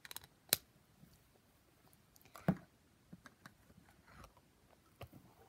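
Small clear plastic slime pot being handled and set down: scattered plastic clicks and knocks. The sharpest comes about half a second in and a duller knock about two and a half seconds in, with a few quieter taps between.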